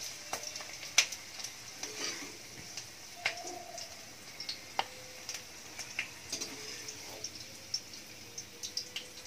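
Hot oil sizzling faintly in a kadai after frying onions, with scattered light clicks as the fried onion pieces are scooped out.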